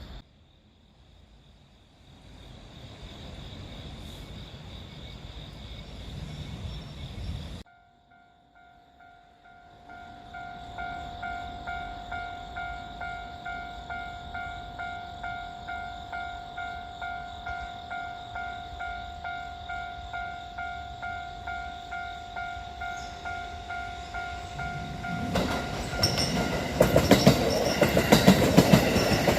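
Level-crossing warning bell ringing steadily, a repeating electronic clang about twice a second, while the crossing is closed for a freight train. About 25 s in the train reaches the crossing and gets loud, its wheels clattering rhythmically over the rail joints.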